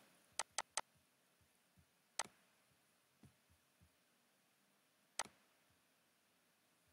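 Computer mouse clicks: three quick clicks about half a second in, then one single click a little after two seconds and another past five seconds, with near silence between.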